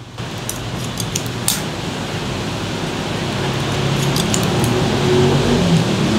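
Barber's scissors snipping through lifted sections of wet hair, short metallic clicks in a few quick runs, over a steady rushing noise in the room.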